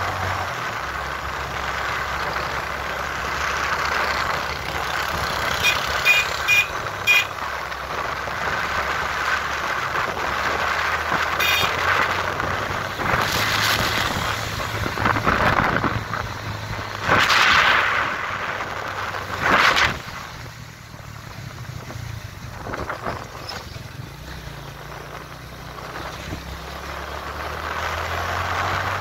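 Motorcycle engines running steadily while riding, with wind noise over the microphone. A few short sharp sounds about six to seven seconds in, and louder surges of noise in the middle.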